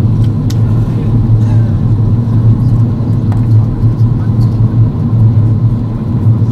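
Airbus A330-200 cabin noise from a window seat over the wing during the landing approach: the engines and rushing airflow make a loud, steady, deep rumble, with a faint steady high tone above it.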